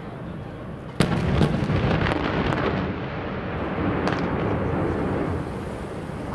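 Dynamite blasts on a mountainside. A sharp explosion about a second in sets off a long rolling echo, with a few more cracks during it and another about four seconds in.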